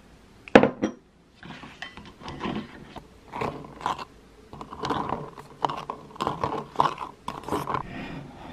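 Ice cubes clinking and rattling against the walls of a stainless steel tumbler of iced coffee as it is stirred with a straw, in irregular bursts. A sharp knock sounds about half a second in.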